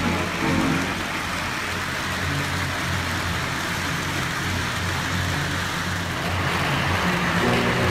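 Toy trains running on the layout's track, a steady rumble and whir with a low hum. Music fades out just after the start and comes back near the end.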